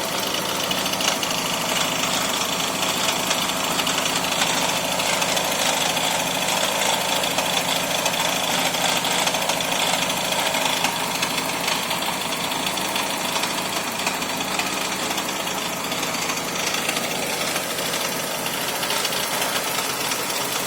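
2001 Toyota Camry engine idling super rough: a steady, uneven running with a dense fast ticking throughout.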